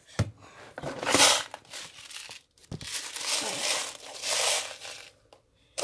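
Plastic rustling and crinkling in several short bursts as a small clear plastic storage box is fetched and handled.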